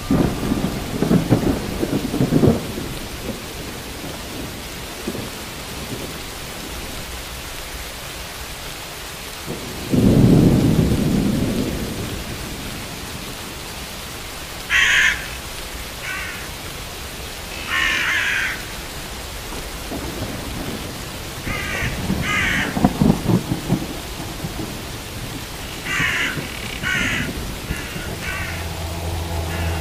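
Steady rain with three low rolls of thunder, the loudest about ten seconds in. In the second half a bird calls several times in short bursts, and music comes in near the end.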